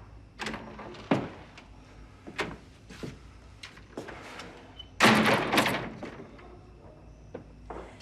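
A door being handled, with several separate knocks and clicks, then a loud, noisy rattle lasting under a second about five seconds in.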